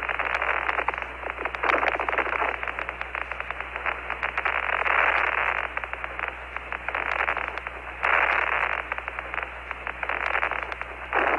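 Radio static on the Apollo 15 air-to-ground voice loop, with no voices. It is a steady narrow-band hiss with dense crackle and a low steady hum under it, swelling louder for stretches at about two, five and eight seconds in.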